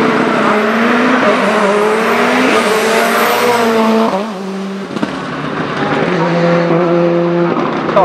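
Ford Escort Cosworth's stroked, turbocharged Cosworth YB four-cylinder race engine under hard acceleration. Its pitch climbs and then drops several times as it shifts up through the gears. It turns slightly quieter about halfway through.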